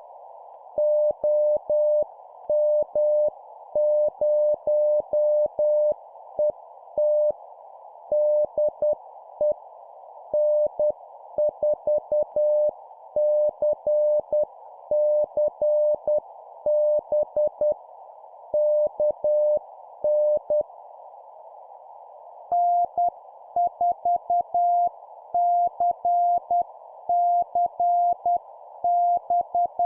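Morse code (CW) tones keyed at about 10 words per minute over a steady band of filtered hiss, like a radio receiver. One station's tone sends until about twenty seconds in; after a short pause a second station answers on a slightly higher-pitched tone.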